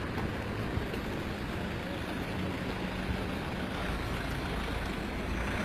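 Steady street traffic noise, a low rumble of road vehicles running nearby.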